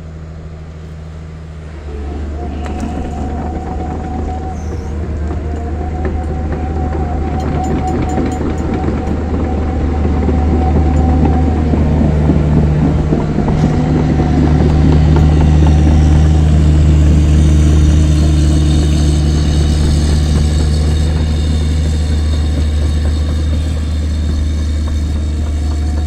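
Komatsu crawler excavator's diesel engine working hard as the machine climbs past on its tracks. It grows louder from about two seconds in as the excavator comes alongside, and a high squeal joins in during the second half.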